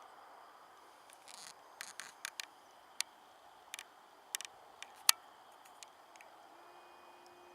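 A string of irregular sharp clicks and taps, about a dozen over some five seconds, the loudest one about five seconds in, over faint steady hiss.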